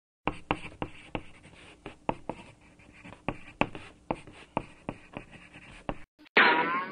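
Pen drawing on paper: a series of short, irregular scratchy strokes. Near the end comes a brief, louder sound that glides up in pitch.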